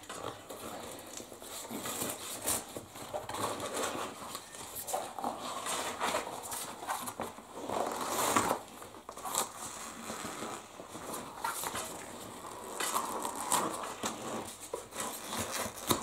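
A rubber inner tube being pulled out of an old bicycle tire by gloved hands: irregular rubbing, scraping and crinkling of rubber against rubber.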